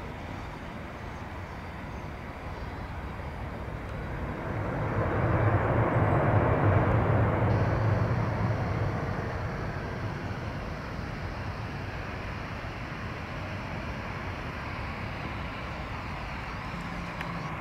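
Airbus A319 jet airliner rolling out after touchdown: its engine rush and rumble swells to a peak about six seconds in, then dies back to a steady lower roar as the jet slows, the swell typical of reverse thrust being applied and released.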